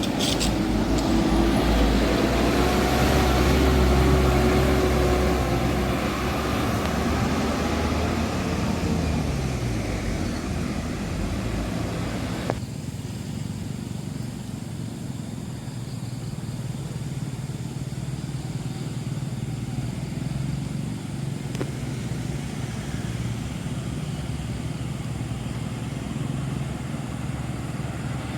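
A bus passing close by, its engine note rising and then sliding down as it goes away over the first ten seconds. After an abrupt change about twelve seconds in, only quieter, steady road noise remains.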